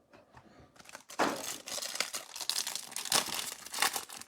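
Trading card packaging being torn open and handled: crinkling and tearing, starting about a second in and coming in repeated rustles.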